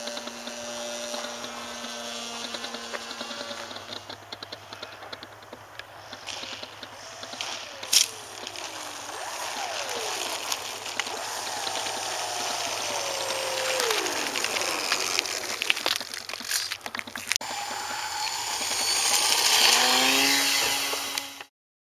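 RC model airplane's motor, its pitch falling several times as it throttles back and comes in to land, with a sharp knock about eight seconds in as it touches down, over steady rushing noise. A louder rushing noise takes over near the end and cuts off suddenly.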